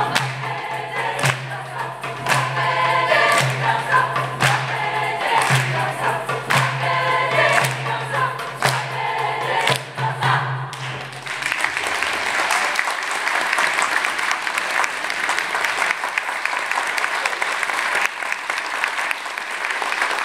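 Choir singing over a low held note and a steady beat about once a second; the song ends about eleven seconds in and the audience breaks into sustained applause.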